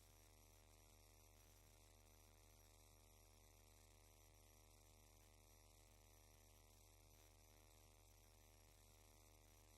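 Near silence: only a faint, steady electrical hum.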